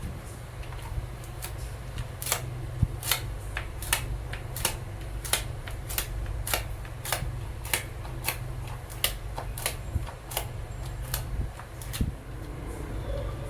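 Sharp, evenly spaced clicks or taps, about three every two seconds, over a steady low hum.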